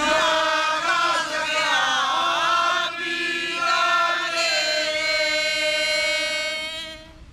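A group of men and women pilgrims singing a devotional chant together in unison, in long drawn-out phrases that fade out near the end.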